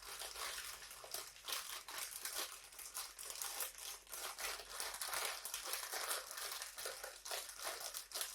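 Instant-noodle packet crinkled and crumpled in the hands, a dense continuous run of crackles used as a foley imitation of a crackling fire.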